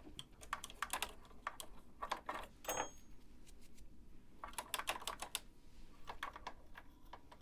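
Light, irregular clicks and taps from the bobbin area of a Bernina sewing machine as it is brushed and wiped clean of lint, with a quick run of clicks about halfway through.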